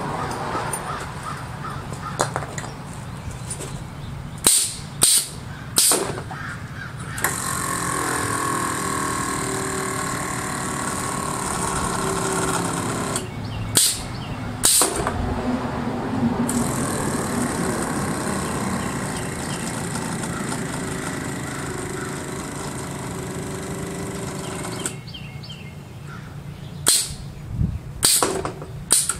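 Air-ride suspension compressor running on a weak battery, a steady drone with a whine that lasts about eighteen seconds as it slowly fills the air bags. Before and after it there are clusters of short, sharp bursts of air from the suspension valves.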